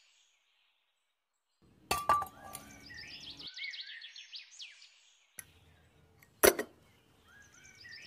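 Small metal bucket clinking on being handled and set down: a sharp clink about two seconds in and a louder one about six and a half seconds in. Birds chirp in short repeated calls between and after them.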